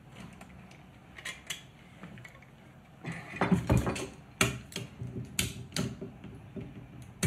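Metal hand tools working on a rear brake caliper: a G-clamp screw wound tight against the piston with a few faint clicks, then locking vice grips handled and clamped onto the piston in a string of sharp metallic clicks and clacks from about halfway through.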